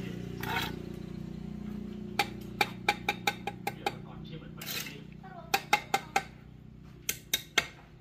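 Steel trowel tapping hollow clay bricks to bed them into the mortar: sharp clinks in quick runs, about seven in a second and a half, then two runs of four, with a brief scrape between them.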